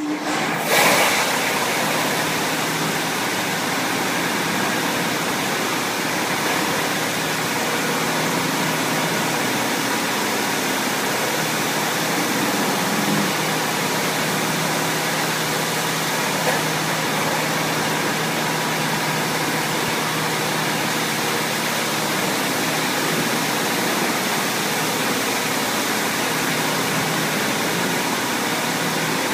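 Touchless car wash gantry spraying a car with high-pressure water jets: a loud, steady hiss of water, with a faint steady low hum under it.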